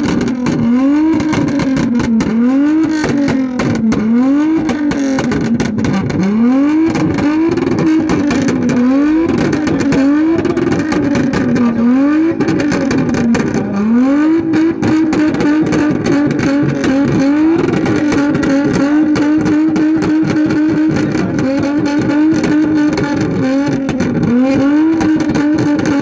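Toyota Mark X's V6 engine being revved hard, in quick blips that rise and fall about once a second, then held high for several seconds at a time. The exhaust pops and bangs all the way through.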